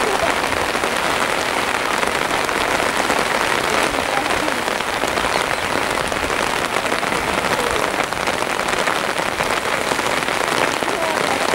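Steady rain falling, a dense even hiss of many small drops pattering.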